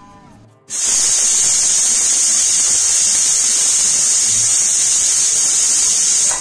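Stovetop pressure cooker whistling: a long, loud, high-pitched hiss of steam venting past the whistle weight, starting abruptly about a second in and cutting off suddenly near the end. It is the sign that the cooker has reached full pressure.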